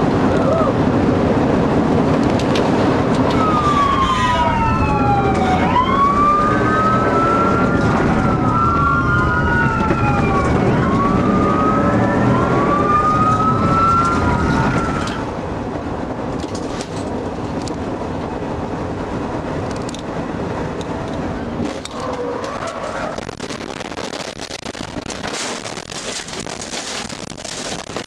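Police siren rising and falling, several wails overlapping, over heavy engine and road rumble heard from inside a pursuing police car. About halfway through, the siren stops and a quieter engine and road noise carries on.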